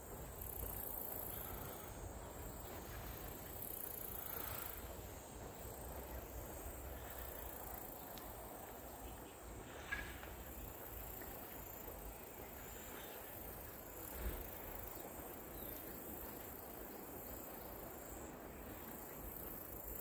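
Tall silver grass rustling in the wind on both sides of the path, over a steady high hiss, with two short ticks about 10 and 14 seconds in.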